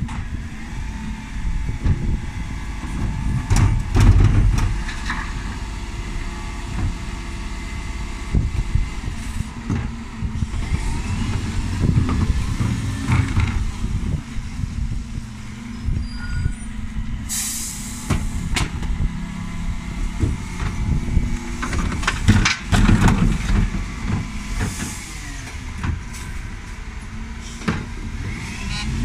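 Dennis Elite 6 bin lorry's diesel engine running, with a loud air-brake hiss lasting about a second around two-thirds of the way through. Clattering knocks from wheelie bins and the Terberg rear lift come a few seconds in and again later on.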